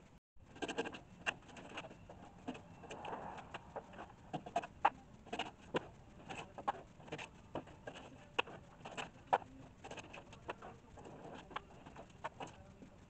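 Bark being cut and split off a black walnut log with a hand-held blade: irregular sharp cracks and scrapes, about two or three a second, as strips of bark tear away.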